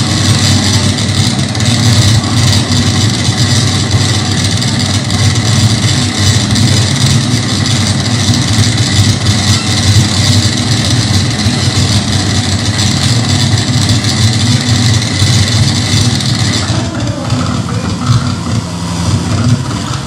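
Live electronic noise music from a laptop-and-electronics rig: a loud, dense low rumble with harsh hiss layered above it. About three-quarters of the way through, the high hiss drops away, leaving mostly the rumble.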